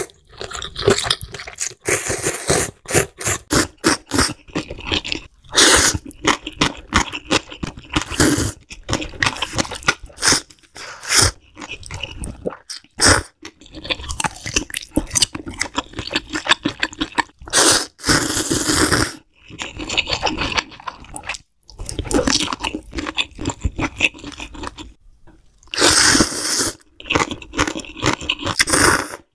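Close-miked eating of spicy instant ramen. Noodles are slurped from a wooden ladle in several long, loud slurps. Between them come wet chewing and smacking, and a bite of sausage about halfway through.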